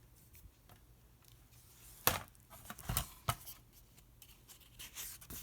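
Faint handling noise: a few sharp clicks and scrapes, the loudest about two seconds in, with a rustle building near the end.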